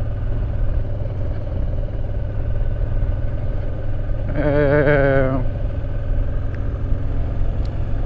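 Honda Transalp motorcycle riding along at a steady pace, its engine and road noise a constant low rumble. A person's voice sounds briefly about halfway through.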